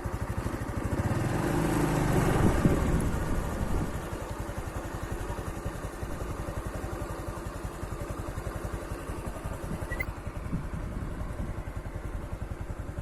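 A small engine running with a steady, rapid pulsing, louder for a few seconds near the start.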